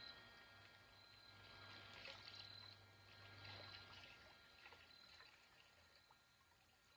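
Faint trickling and dribbling of water as a towel is soaked in a bucket of water to make a wet fire blanket, over a steady low hum.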